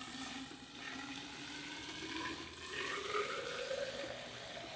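Water from a garden hose running steadily into a clogged PVC drain pipe, filling it up.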